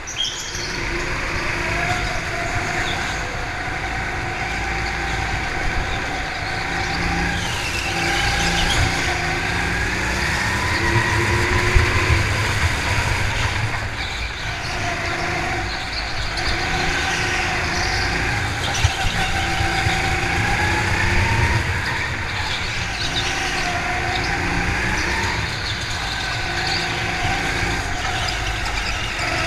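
Go-kart running around the track, its motor's pitch rising and falling over and over as it speeds up on the straights and slows into the corners.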